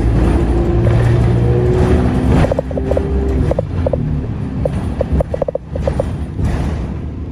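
Alexander Dennis Enviro200 single-decker bus under way, heard from inside the cabin: a steady engine and drivetrain hum, which gives way about two and a half seconds in to a rougher road rumble with a scatter of short rattles.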